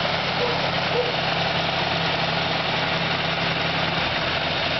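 1939 Dodge D11's 218 cubic-inch inline flathead six-cylinder engine idling steadily, heard up close in the open engine bay.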